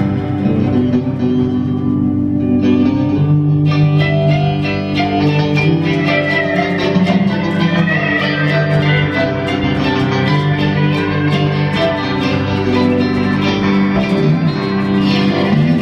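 Live band playing an instrumental passage with pedal steel guitar, electric guitar, bass and Hammond organ. Cymbals and drums come in with a steady beat about four seconds in.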